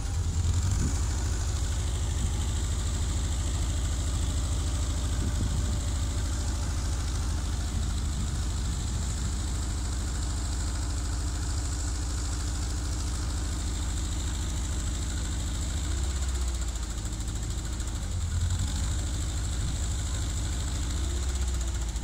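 Genie articulating boom lift's engine running steadily while the boom raises the basket. Its pitch steps up briefly about two-thirds of the way through and again near the end.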